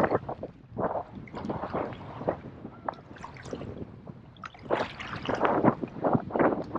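Water splashing and slapping against a kayak's hull in wind-driven chop, in irregular bursts that are strongest about a second in and again from about four and a half to six seconds.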